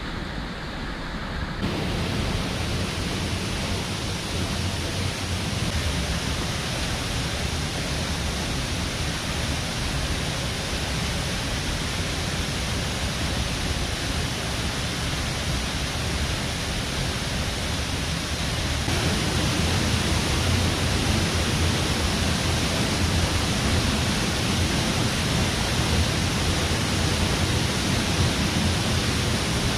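Waterfall rushing: a steady, dense roar of falling water, a little louder from about 19 s in.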